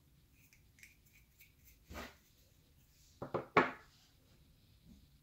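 A few brief knocks and rubbing sounds: one about two seconds in and a quick cluster of three about three seconds in, the last the loudest, with faint small clicks between.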